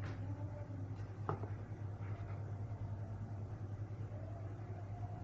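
Steady low background hum with a single faint click about a second in.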